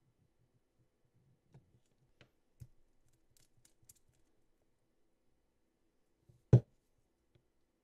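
Light clicks and ticks of a glass gel polish bottle being handled and its brush cap unscrewed. About six and a half seconds in comes a single sharp, aggressive-sounding knock, much louder than the rest.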